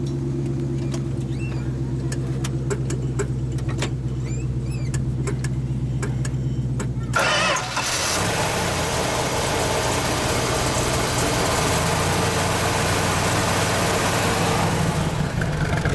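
A steady low hum, then about seven seconds in the 1970 Plymouth AAR Cuda's 340 six-barrel V8, fed by three two-barrel carburettors, fires up after a very short crank and settles into a steady run.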